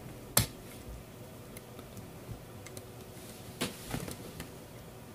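A few sharp clicks and light taps of small metal engine parts being handled on a Tamiya .18 nitro engine as an exhaust gasket is fitted over its screws. The loudest click comes about half a second in, and two more come close together about three and a half seconds in.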